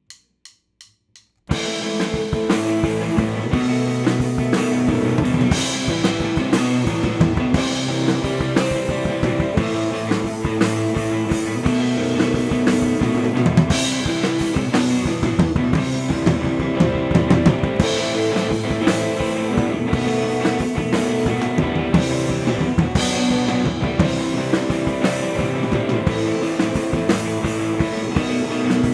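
Four quick clicks, a count-in, then a live rock band comes in together and plays loudly: drum kit and two electric guitars.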